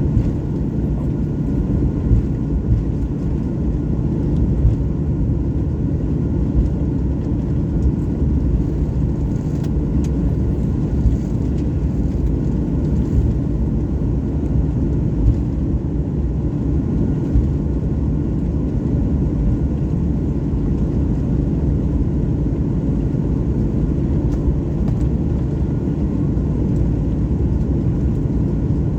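Jet airliner noise: a steady low drone of engines and airflow, unchanging, with faint steady tones above it.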